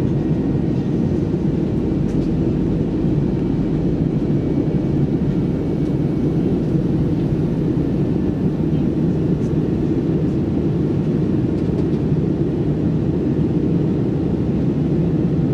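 Cabin noise of an Airbus A321-200 in cruise, heard from a window seat: a steady, deep rush of engine drone and airflow that does not change.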